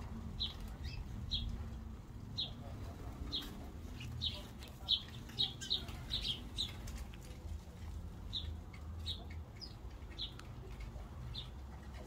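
House sparrows chirping: a run of short single chirps, one or two a second, with the flutter of wings as birds come and go at the feeders.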